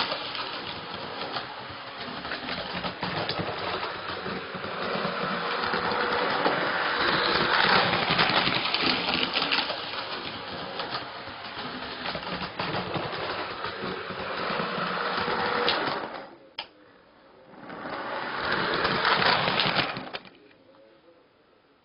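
Model train running on the layout's track, a dense steady clatter of wheels and motor. It dips out briefly about three-quarters of the way through, comes back for a couple of seconds, then stops.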